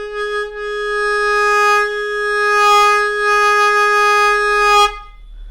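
Hohner Superforce 37 melodica playing one long held note, steady in pitch with many overtones, swelling a little in loudness and stopping about five seconds in.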